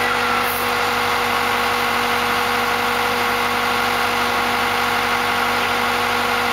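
An engine idling steadily, with a constant even hum.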